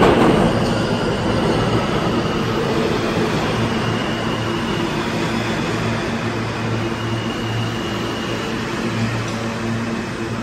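New York City subway train pulling into an underground station along the platform. Its wheels and motors run loudly at first and ease off gradually as it slows, with thin high wheel squeals now and then.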